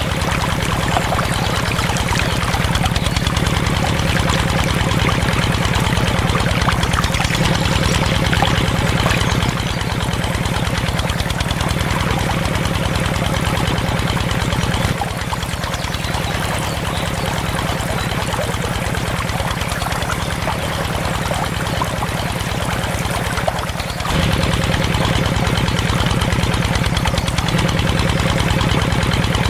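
Miniature single-cylinder stationary diesel engine running with a rapid, even chugging beat as it drives a small water pump. Water pours and splashes from the pump's outlet pipe. The engine sounds quieter for a stretch in the middle.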